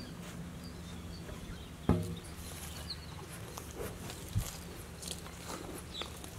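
Outdoor ambience: faint bird chirps over a low steady hum, with a few short knocks, the loudest about two seconds in.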